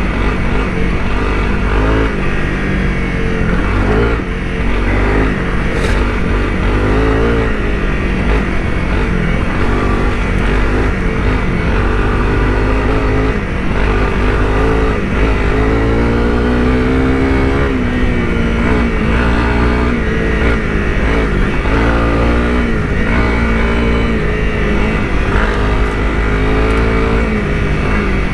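Honda CRF250 Rally's single-cylinder engine running under constantly changing throttle, its note rising and falling as the bike is ridden off road. A sharp click comes about six seconds in.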